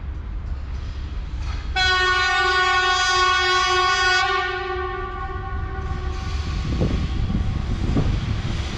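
VL11 electric locomotive's air horn giving one long blast of about two and a half seconds, starting about two seconds in, over the low rumble of the approaching freight train.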